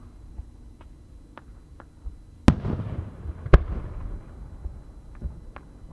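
Large aerial firework shell bursting: a loud bang about two and a half seconds in, trailed by a rolling rumble, and a second sharp bang about a second later. A few faint sharp pops come before and after.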